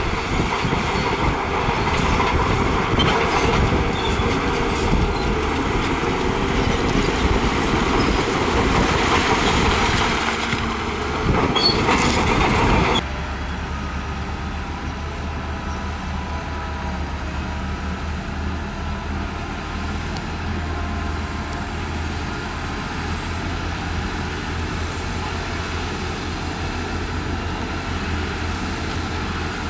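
Heavy diesel earthmoving machinery working rock: a loud grinding, clattering noise of rock and steel for about the first thirteen seconds, which cuts off suddenly to a steadier, quieter engine running with a low hum.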